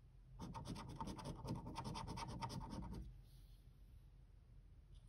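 A coin scraping the scratch-off coating from a square of a National Lottery Diamond Maze scratchcard: a quick run of short scraping strokes starting about half a second in, lasting about two and a half seconds, then stopping.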